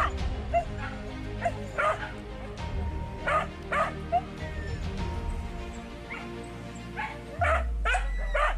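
Hunting dogs barking and yelping in short, irregular bursts, over steady background music.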